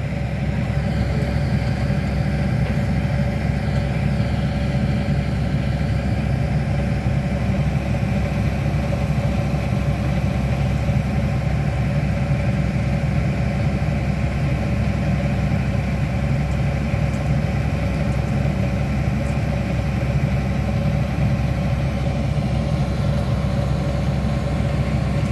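Hitachi Zaxis 210 excavator's diesel engine running at a steady idle.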